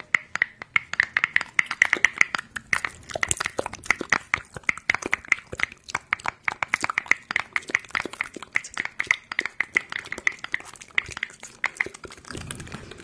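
Rapid, irregular clicking and tapping, several sharp clicks a second, each with a slight ring; the clicks thin out and give way to a soft rustle near the end.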